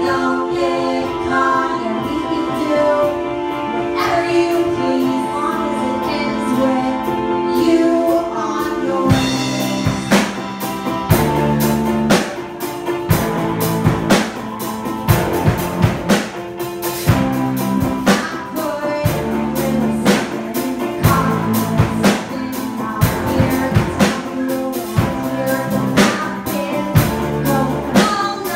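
A live rock band playing: a woman singing over electric guitar and keyboard, with bass guitar and a drum kit coming in with a steady beat about nine seconds in.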